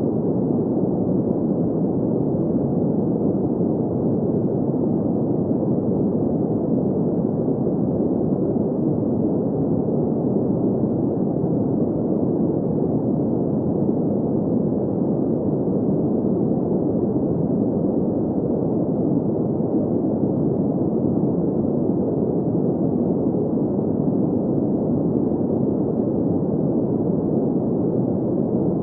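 Steady, unvarying green noise for sleep: an even, dull rushing hiss with no high end, unchanged throughout.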